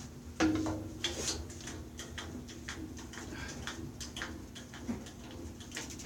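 Wooden block and workpieces being handled on a woodshop bench: one sharp knock about half a second in, followed by scattered light clicks and taps.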